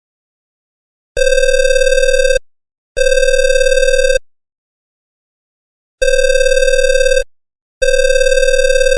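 Telephone ringing sound effect: a loud, steady pitched ring sounding in pairs, two rings of about a second each, a pause, then two more.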